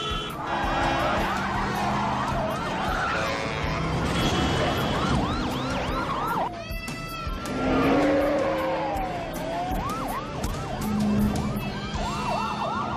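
Many police car sirens wailing and yelping over one another in quick rising-and-falling sweeps, over a dense haze of car engine and tyre noise.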